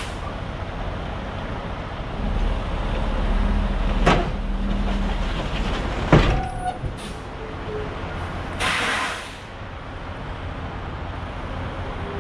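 Semi-truck slowly pulling its trailer forward over the braked tandem axles to slide the tandem rearward and even out the axle weights: a low engine rumble swells, with sharp metal clunks about four and six seconds in, the second the loudest. A short hiss of air follows just before nine seconds.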